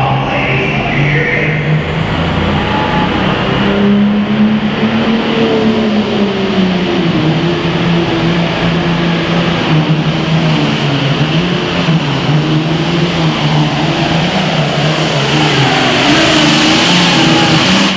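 Turbocharged diesel super farm pulling tractor running hard under load down the track, its engine note wavering up and down. A thin high whistle climbs over the first five seconds.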